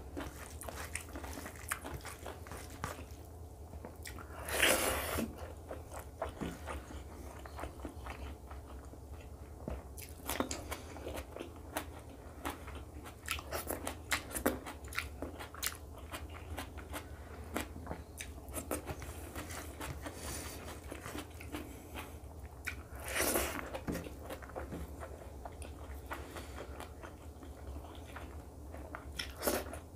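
Close-up chewing and mouth sounds of a person eating rice and egg curry by hand, with many small clicks and smacks. Two louder, longer noisy sounds come about five seconds in and again about twenty-three seconds in, over a steady low hum.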